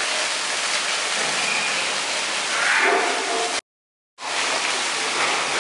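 A steady rushing noise, like wind on the microphone or running water, with faint voice-like sounds a little past halfway; the sound cuts out completely for about half a second at an edit, then the rushing resumes.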